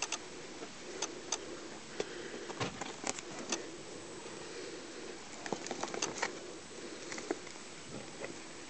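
Handling noise from a box as a leopard gecko is lifted out: scattered light clicks and taps, a small cluster of them a little past halfway, over a faint low hum.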